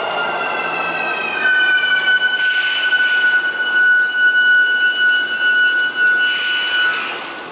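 Kintetsu electric commuter train braking to a stop: its motor whine falls in pitch, then a steady high brake squeal holds for several seconds, with two short hisses of air, and fades out near the end.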